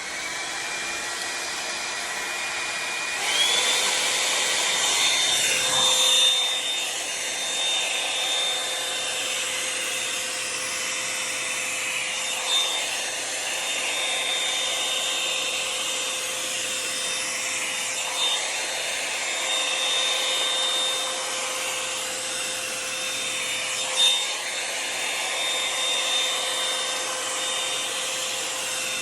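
Revlon One-Step hair dryer brush running with a steady motor whine, jumping to a higher, louder whine about three seconds in. The brush is drawn through hair in rustling strokes that recur roughly every six seconds.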